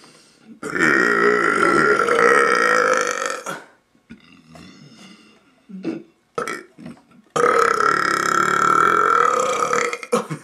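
A young man belching loudly: two long drawn-out burps, each lasting about three seconds, with a few brief short sounds between them.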